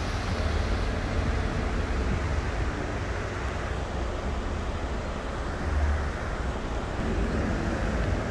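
Steady rushing of the fast-flowing, flooded Moselle around stone bridge piers, under a constant low rumble.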